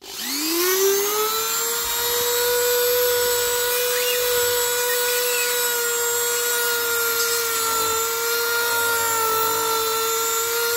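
Powerplus X1340 rotary multitool with a sanding drum spinning up to a steady high whine and sanding out a rough drilled hole in a 3D-printed plastic part. It is switched off suddenly at the end.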